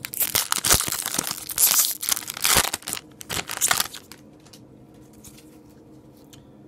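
Foil wrapper of a hockey trading-card pack being torn open and crinkled, with sharp crackling for about four seconds before it stops.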